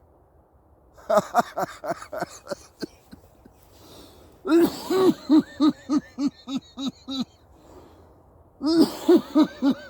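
A man laughing hard in three bouts of rapid, rhythmic 'ha-ha' pulses: one about a second in, a longer, loud one about halfway through, and another near the end.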